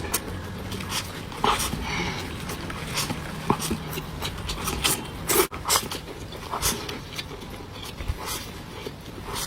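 Mouth sounds of eating: wet chewing and smacking, a run of short sharp clicks.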